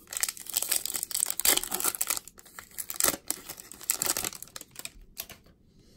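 A Topps baseball card pack's wrapper being torn open and crinkled by hand, a dense run of crackling for about four seconds that dies away to a few faint ticks near the end.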